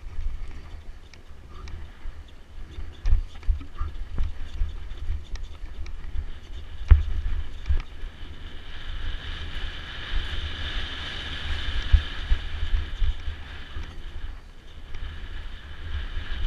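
On-board camera sound of a mountain bike descending a rough dirt trail: wind buffeting the microphone, with knocks and rattles as the bike hits bumps and one sharp knock about seven seconds in. A steady hiss builds from about eight seconds in and fades by about fourteen seconds.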